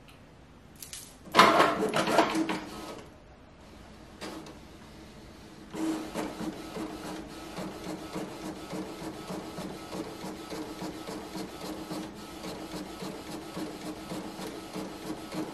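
Canon Pixma iX6820 wide-format inkjet printer printing a picture. A loud burst of mechanical whirring comes about a second in. From about six seconds there is steady whirring with rapid ticking as the print head works across the page.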